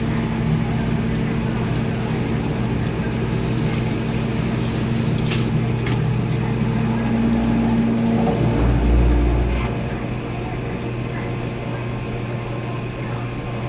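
Dishwasher running mid-cycle: a steady motor hum with a few sharp clicks, and a heavier low rumble that swells about eight seconds in and stops with a click near ten seconds.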